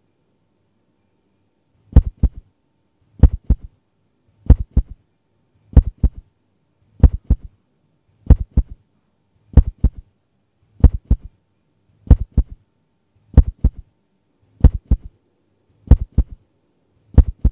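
Heartbeat sound effect: a deep, slow beat repeating about every 1.3 seconds, each beat a loud thump followed by two or three softer ones, starting about two seconds in.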